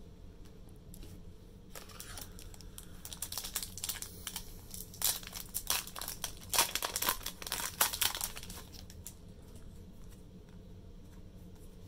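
Foil Pokemon booster pack wrapper crinkling and tearing as it is opened, a run of crackles from about two seconds in that is loudest in the middle and dies away after about nine seconds.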